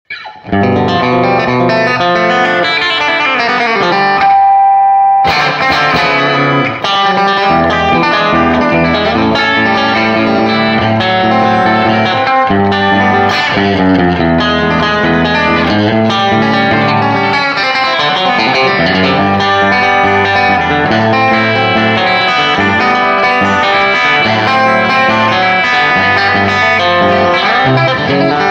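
Fender Stratocaster electric guitar with Radioshop pickups played in chicken pickin' style: fast, snappy country lead lines. About four seconds in a single note is held for a second before the busy picking resumes.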